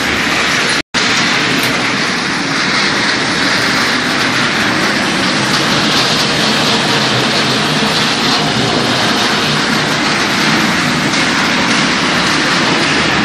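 Corn puff extruder production line running: a loud, steady machinery noise that cuts out for a split second about a second in.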